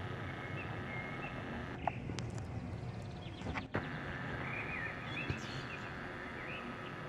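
Small birds chirping over a steady low outdoor rumble, with two sharp clicks where the recording cuts.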